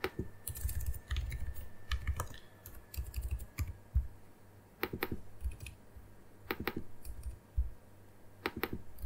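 Typing on a computer keyboard: quick runs of keystrokes for the first three and a half seconds, then a few scattered clicks.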